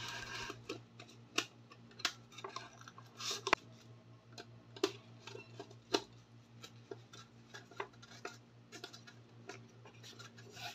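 Gloved hands handling insulated wires and a wall light switch: scattered light clicks, taps and rubbing of plastic and wire, over a faint steady low hum.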